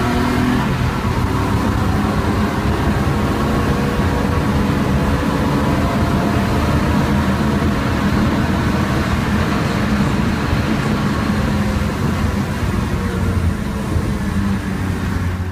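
BMW E36 328i race car's straight-six engine heard from inside the cabin at high speed, running hard along the straight over road noise, then easing off as the car slows for a corner near the end.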